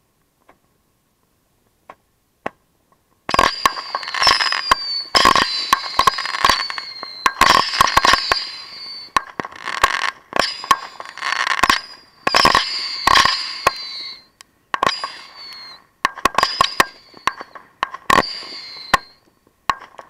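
Consumer fireworks fired close to the microphone: a rapid string of sharp bangs mixed with repeated whistles that fall slightly in pitch. They start about three seconds in and die away near the end.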